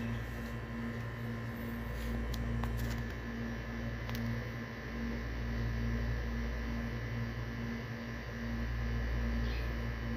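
Steady mechanical hum with a faint tone that pulses about twice a second, and a few faint clicks.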